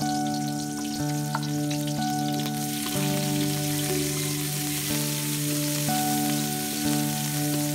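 Oil sizzling in a wok with sliced shallots and garlic. About three seconds in, sliced green vegetables go in and are stirred with a wooden spatula, and the sizzle thickens. Background music of held notes, changing about once a second, plays over it.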